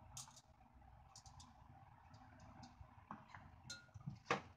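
Faint scattered clicks and taps of a kimchi container and kitchen utensils being handled over a clay pot, with one louder click near the end, over a low steady background hum.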